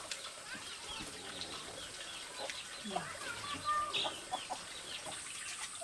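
Farmyard birds calling: chickens clucking and small birds chirping in short, scattered calls.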